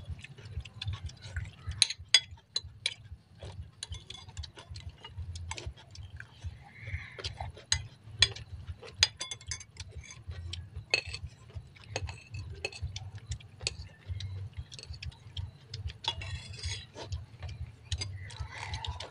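Metal spoons clinking and scraping against ceramic bowls and plates during a meal, in many quick irregular clicks, over a steady low hum.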